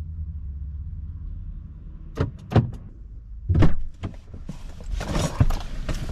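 Low, steady rumble of a vehicle running. Then two sharp knocks about two seconds in, a heavier thunk a second later, and a stretch of rustling and knocking near the end.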